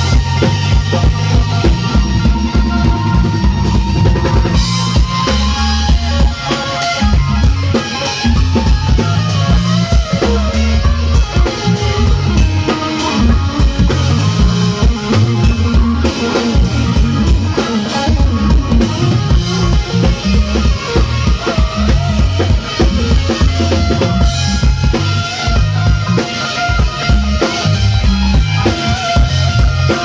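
Live rock band playing an instrumental: an amplified electric guitar over a drum kit, with a heavy kick drum.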